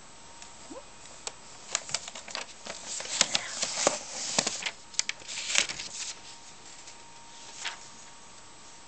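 A sheet of printer paper rustling and crinkling in irregular bursts, loudest in the middle, as a cat pushes its head against the printed page in a printer's output tray.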